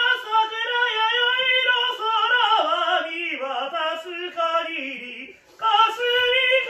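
A classically trained male voice singing a melodic line high, an octave above the written pitch, with a wavering vibrato. The line breaks off about five seconds in and starts again after a short breath.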